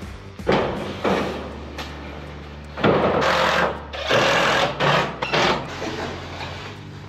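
Cordless impact driver running in repeated bursts, the longest about a second each, driving screws through corrugated metal roof panels.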